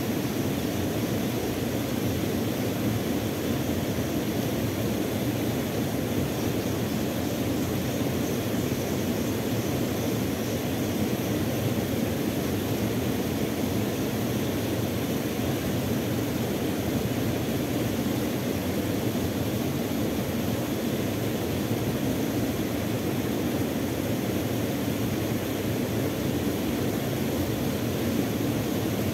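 Small waterfall spilling over a weir into a river pool: a steady, unbroken rush of water.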